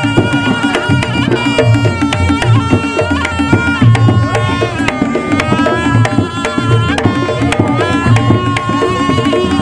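Reog Ponorogo gamelan music: kendang drums beating a steady, fast pattern of deep strokes, under a held, wavering melody from a reed instrument, the slompret.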